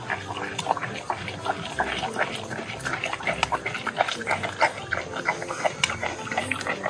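Capybara biting and chewing watermelon from a hand: fast, wet crunching, several bites a second.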